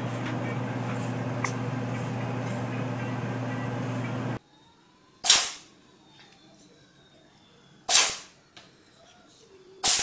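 A steady electrical hum with hiss for about the first four seconds. Then a cat sneezes sharply three times, each sneeze about two to two and a half seconds apart.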